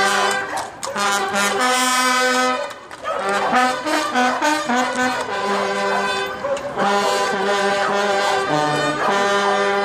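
Mounted band of trumpeters on horseback playing a tune in long held brass notes, with a brief gap about three seconds in.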